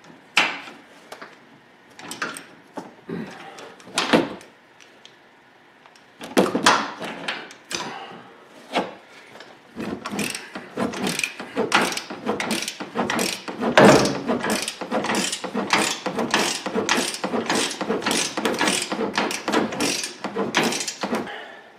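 Wrench work on the 21 mm upper control arm bolts of a truck's front suspension: a few separate metal clicks and knocks, then from about halfway through a steady run of ratchet-like clicking, two to three strokes a second.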